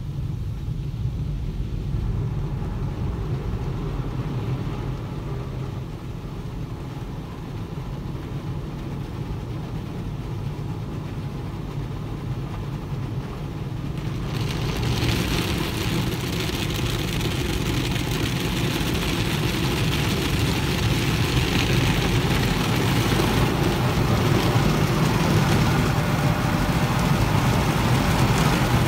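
Automatic car wash heard from inside the car: a steady low rumble of the wash, then about halfway through a loud hiss of water and foam spraying onto the windshield and body starts up and builds.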